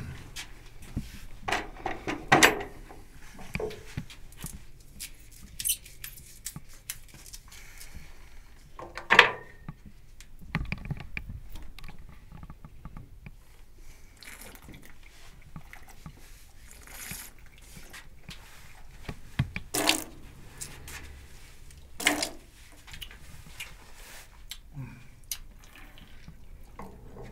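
Wine being handled and tasted from glasses: liquid pouring, dripping and sipping, with small knocks of glass and bottle, as scattered short sounds over a quiet cellar, a few of them louder.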